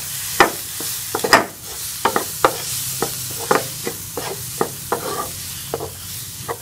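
Wooden spatula scraping and knocking on a nonstick frying pan, about two strokes a second, as onions and ground spices are stirred and fried with a splash of water, over a steady sizzle.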